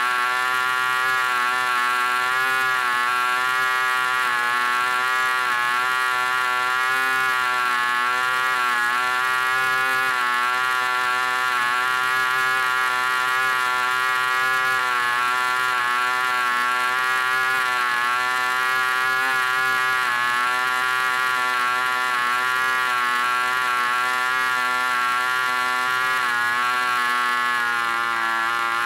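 D-C Tornado Twin 5cc two-stroke glow engine, a boxer twin whose cylinders fire together, running steadily at about 7,700 rpm with its propeller spinning: a loud, steady buzz whose pitch wavers slightly and dips a little near the end.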